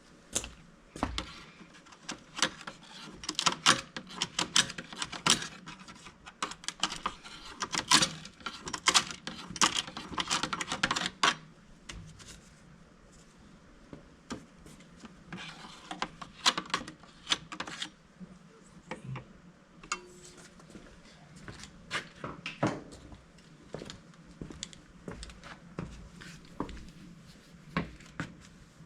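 Rapid clicking, scratching and rustling in a mini excavator's air filter housing as a mouse nest is cleared out of it. The clatter is dense for the first ten seconds or so, then comes in scattered bursts.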